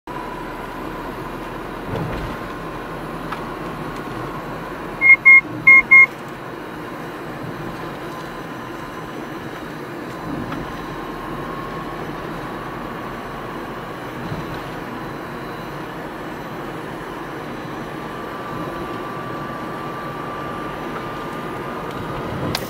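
Steady road and engine noise inside a moving car, with three short, high electronic beeps about five seconds in.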